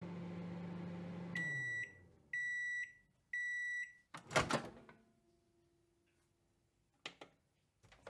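Microwave oven running with a low hum that winds down about a second in, then three beeps marking the end of the cook cycle. A loud clunk follows as the door is opened, and a few faint clicks come near the end.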